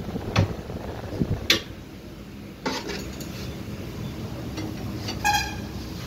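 Metal clanks and knocks of a tyre-changer machine's mount/demount tool and tyre lever against a motorcycle wheel rim as the tyre bead is worked over it. About five seconds in, one clang rings on briefly. A steady low hum runs underneath.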